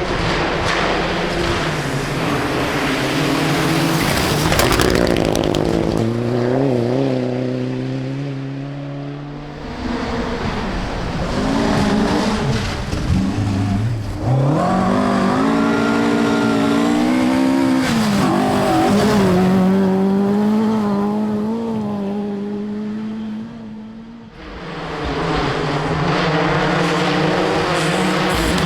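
Rally cars at full speed on a forest stage, their engines revving hard, the pitch climbing and dropping sharply with each gear change. The sound dips about ten seconds in and again at about twenty-four seconds, as one run ends and the next begins.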